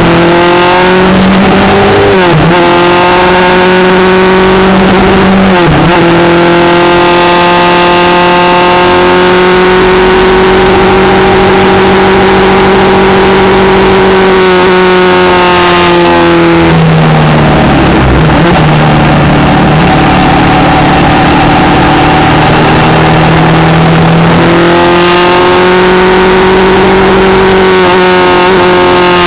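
V-twin motorcycle engine heard from on board at road speed, over steady wind rush. It holds steady cruising revs with a few short dips in engine speed; revs drop lower about halfway through and climb back a few seconds later.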